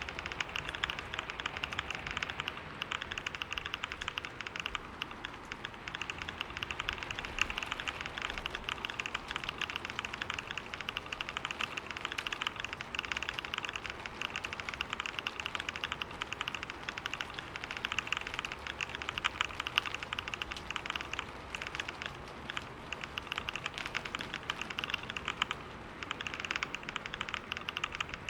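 Computer keyboard typed on fast and without letup, a dense stream of key clicks at typing-test speed of about 125 words per minute.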